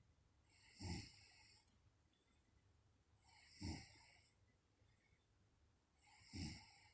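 A woman snoring in her sleep: three snores about three seconds apart, each a short low rattle with a breathy hiss.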